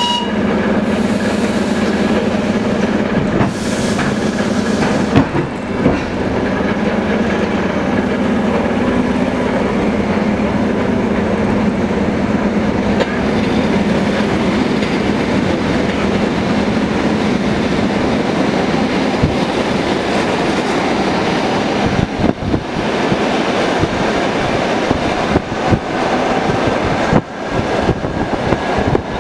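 Electric suburban train (elektrichka) running, heard from inside the carriage: a steady motor hum with wheel and rail noise and scattered clicks. Near the end the noise turns choppy as a long freight train of open wagons passes on the next track.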